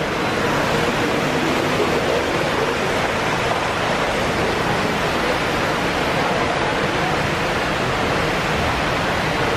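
Steady rushing of water, an even hiss with no breaks or changes in level.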